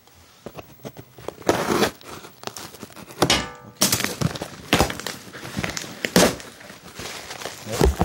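A cardboard parcel being cut and torn open by hand: packaging crinkling and tearing in irregular bursts, with a few knocks against the box and a short rasping rip about three seconds in.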